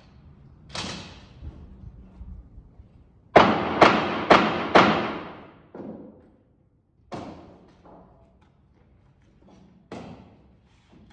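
Nails being driven into a wooden floor truss: four sharp bangs about half a second apart a few seconds in, each ringing on in the metal building, among a few lighter knocks.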